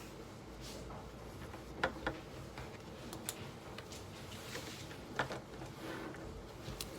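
Scattered light taps and clicks of someone working at a desk, over a low steady room hum; the sharpest come about two seconds in, as a close pair, and again a little past five seconds.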